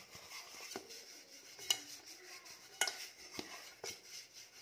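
Fingers rubbing oil around the inside of an aluminium cake tin as it is turned by hand, with a faint scraping and several light metallic clicks and taps from the tin being handled.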